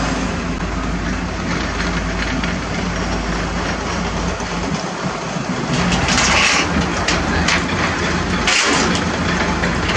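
A heavy diesel engine idling steadily. Two louder noisy bursts come about six and eight and a half seconds in.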